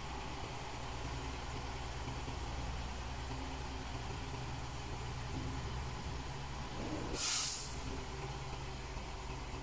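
Isuzu Giga 6x4 dump truck's diesel engine running steadily at idle as the tipper body lowers, with one short, loud burst of compressed-air hiss about seven seconds in.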